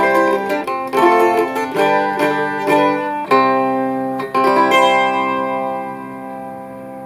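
Tenor mandola playing a simple repetitive picked pattern, then two strummed chords about three and four and a half seconds in. The last chord rings out and slowly fades.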